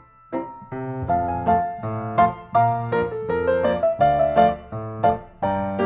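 Background music led by piano, playing a melody over chords with several notes a second. It breaks off briefly at the very start and comes back in about a third of a second in.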